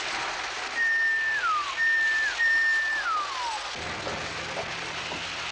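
Toy train whistle blown three times from the Lionel transformer, each blast a high held note that slides down at its end, over the steady rushing hiss of O gauge trains running on the track. A low hum comes in after the whistles.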